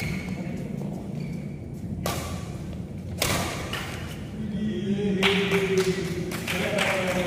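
Badminton rally: sharp racket strikes on the shuttlecock, two about a second apart and then a quicker run of hits and thuds in the second half.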